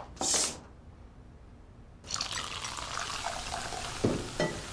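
Cola fizzing as it is poured into a glass, dubbed-in soft-drink sound effects: a short burst of hiss just after the start, then a steady fizz from about two seconds in, with two low thuds near the end.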